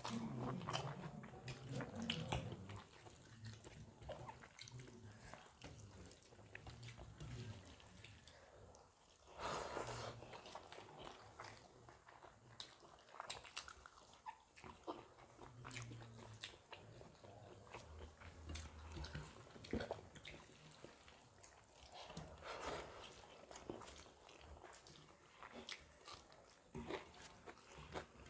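Two people eating rice and fish curry with their hands: soft wet chewing and mouth clicks, with fingers mixing rice on steel plates.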